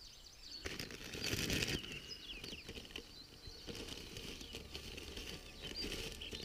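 Rustling and crinkling of camping gear being handled and packed up, starting just under a second in and loudest soon after, with birds chirping throughout.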